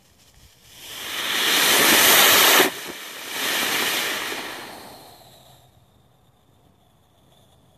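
Homemade sugar rocket engine (potassium nitrate and sugar propellant in a clamped pipe) firing in a static test: a loud rushing hiss of exhaust that builds over about a second, drops off sharply midway, surges again, then fades out over a couple of seconds.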